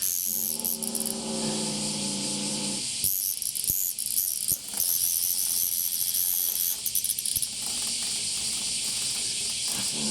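Cicada buzzing shrilly throughout, under a cat's low, drawn-out growl for about the first three seconds: the cat is warning others away from the cicada it has caught.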